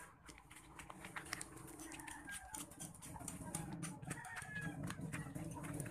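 Chickens clucking and calling, with scattered sharp clicks over a low steady background hum.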